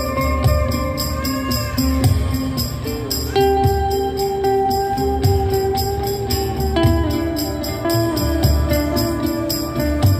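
Live instrumental music in an ambient, flamenco-tinged acoustic style: held melodic notes over a steady, quick percussion beat with jingling, tambourine-like hits.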